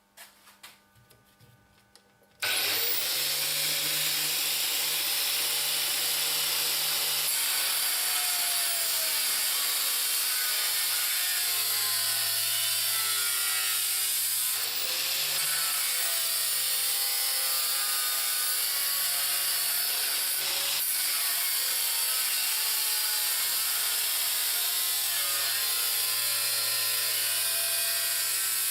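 Angle grinder mounted in a pendulum stand cutting under load. It starts abruptly about two seconds in and runs steadily, with a high motor whine and a cutting noise that wavers in pitch.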